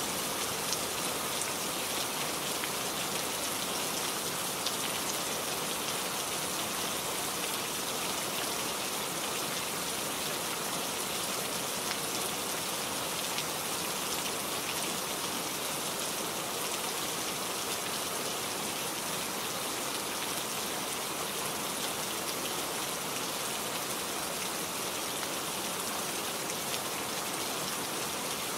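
Steady rain falling: an even hiss of rain with the fine patter of individual drops on a surface.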